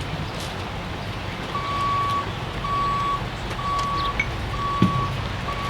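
A vehicle's back-up alarm beeps steadily, a single-pitched tone about once a second, starting about a second and a half in, over a constant outdoor rumble.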